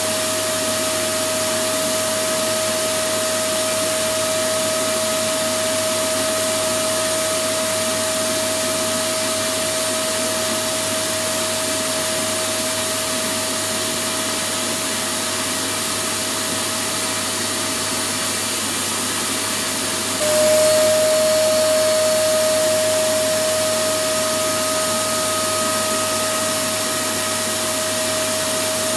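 Electric vacuum cleaner motor running steadily: an even rushing of air with a constant whine. About twenty seconds in it gets a little louder and the whine drops slightly in pitch, then settles back.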